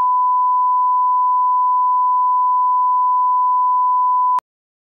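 Bars-and-tone line-up test tone: a loud, steady single-pitch 1 kHz sine tone that cuts off abruptly with a click about four and a half seconds in.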